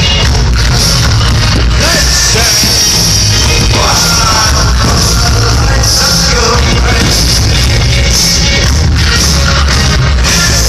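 Loud rock music with singing, heavily compressed and steady in level.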